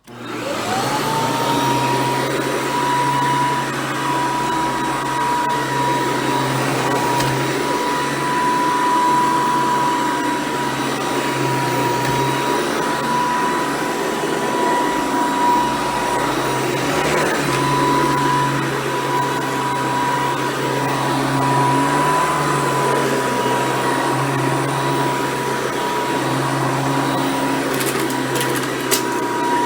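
Hoover Decade 800 upright vacuum cleaner switched on: its motor whine rises to a steady high pitch within about a second, then it runs steadily while vacuuming. A few faint clicks near the end.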